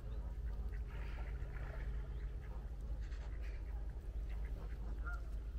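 Faint scattered calls of waterfowl, with a short rising call about five seconds in, over a steady low rumble.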